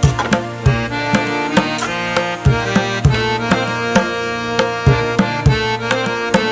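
Instrumental background music: a melody of held notes over a steady hand-drum beat of about three strokes a second.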